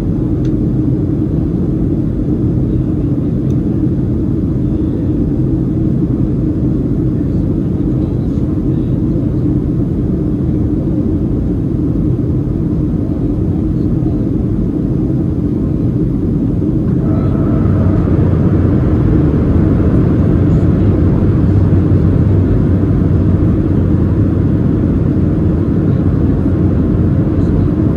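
Steady roar of airflow and CFM56 engines heard from inside the cabin of a Boeing 737-700 on its approach. About seventeen seconds in the noise grows a little louder and a faint steady whine joins it.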